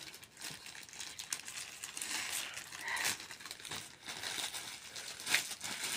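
Plastic courier-bag packaging crinkling and rustling as it is handled and pulled open, with a couple of sharper crackles.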